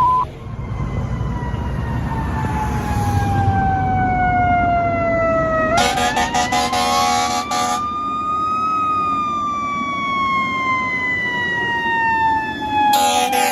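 Fire ladder truck's siren wailing: the tone falls slowly, rises, then falls again. Two long air-horn blasts cut in over it, one near the middle and one near the end.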